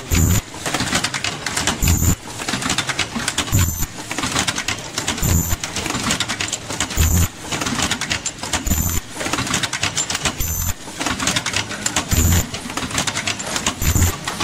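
Automatic disposable-mask making machine running: a dense rapid clatter of its mechanism, with a low buzz and a high whine coming back in a regular cycle nearly every two seconds.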